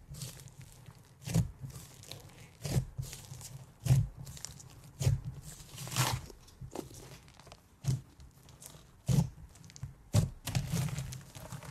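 Fluffy slime mixed with foam beads being squished and poked by hand, giving short crackling, crunchy squishes about once a second, around ten in all, with a longer run of crackles near the end.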